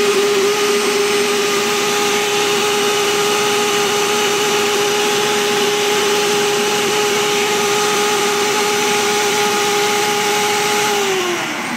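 Ninja Auto-iQ blender running steadily at full speed, blending a thick smoothie of frozen banana and berries. Near the end its motor winds down with a falling pitch as the program finishes.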